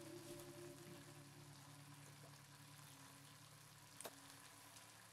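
Faint sizzling of ground beef and vegetables cooking in a pot, close to silence, with a single soft click about four seconds in.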